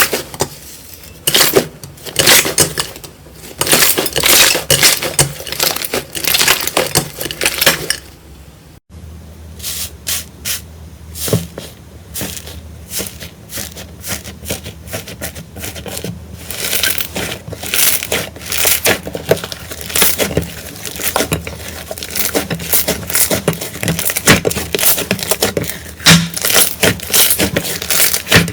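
Slime being squeezed, poked and stretched by hand, making a dense run of crackles, clicks and sticky pops. The sound cuts abruptly about nine seconds in to a second clip of the same kind of crackling handling.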